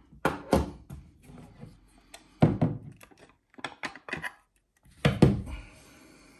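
An old 16-gauge double-barrelled shotgun being taken apart by hand: a string of metal clicks and clunks as the action is broken open and the barrels are lifted off and set down, the loudest about two and a half and five seconds in.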